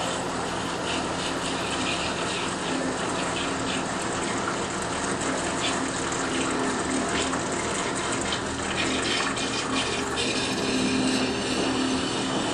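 Distek VIP 4400 dissolution vessel washer spraying water from its wash nozzle inside a glass dissolution vessel, a steady hiss and splash over a steady pump hum.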